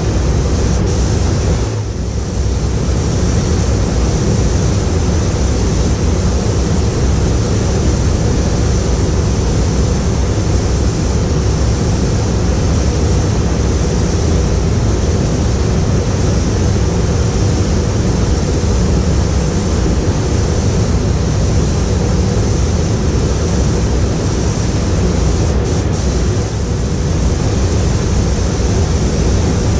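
Steady, loud rushing air noise of a paint spray booth's ventilation fans running.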